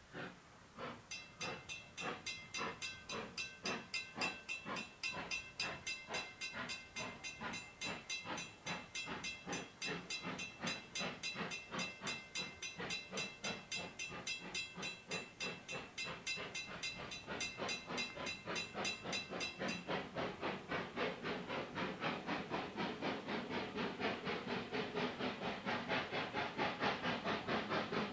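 Thomas the Tank Engine steam locomotive chuffing in a steady rhythm, a little over two beats a second, as it pulls its coaches. For most of the first two-thirds a steady, high, whistle-like tone sounds over the chuffs. After that it stops, and the chuffs grow louder and blur into hissing steam.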